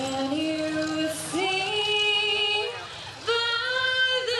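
A woman singing slow, long-held notes that step up and down in pitch.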